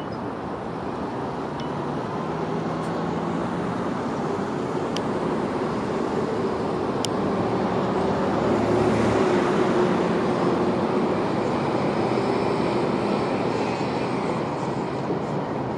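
Engine drone of a passing vehicle, swelling to its loudest about halfway through and then slowly fading.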